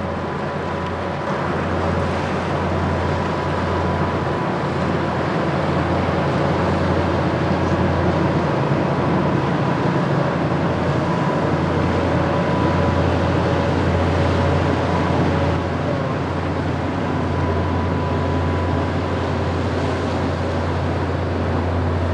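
Steady low drone of an inland cargo motor ship's diesel engine as the vessel passes, under a constant hiss of wind and water, with a faint steady whine.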